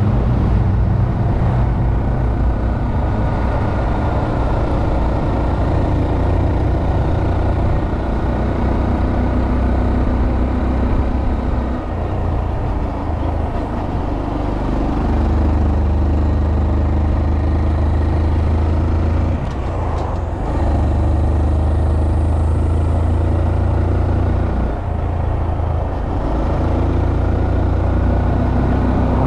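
Honda Monkey 125's single-cylinder four-stroke engine running steadily under way. Its note dips briefly a few times, about twelve, twenty and twenty-five seconds in, as the throttle is eased or a gear is changed.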